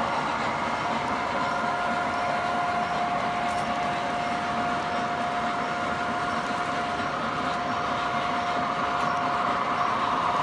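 O-gauge model train, New York Central F-unit diesel locomotives pulling passenger cars, rolling steadily along the track with a steady whine from its motors or sound system.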